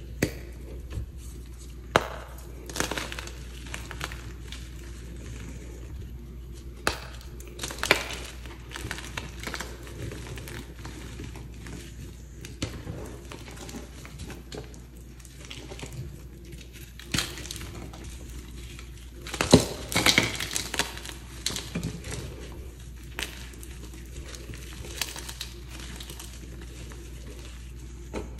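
Hands crushing and crumbling soft, freshly pasted (reformed) chalk blocks into loose chalk powder: irregular crisp crunches and soft powdery crumbling, with a louder run of crunching about twenty seconds in.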